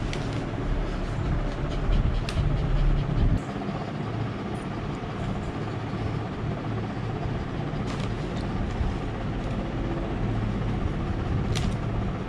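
Steady low rumble and hiss of background noise, heavier in the first three seconds or so, with a few faint clicks.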